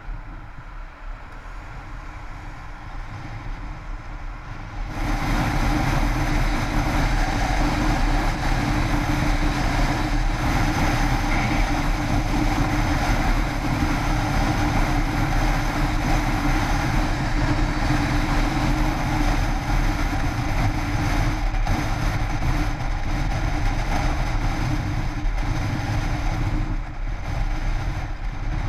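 Yamaha X-City scooter's single-cylinder engine running steadily at highway speed, heard through a camera mounted on the scooter with road and wind noise. About five seconds in the sound jumps suddenly louder and then stays steady.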